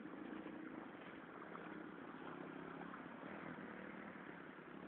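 A motor engine running steadily with a low, even hum.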